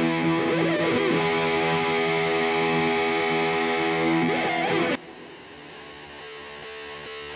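Background music: a distorted electric guitar holds a chord, which cuts off abruptly about five seconds in. A quieter passage follows and slowly grows louder.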